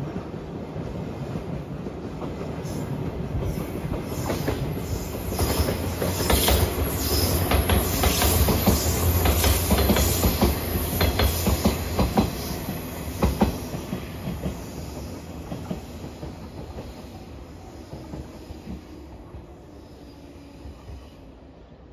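A JR 115-series electric multiple-unit train passing close by. Its sound builds steadily, peaks in the middle with a run of sharp wheel clatter over the rail joints, then fades as the train moves away.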